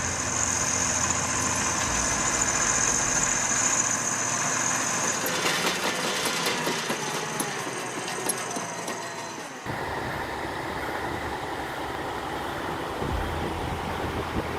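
Heavy machinery engines running. A steady high whine sits over the first few seconds, and the sound changes abruptly about ten seconds in to another steady machine noise.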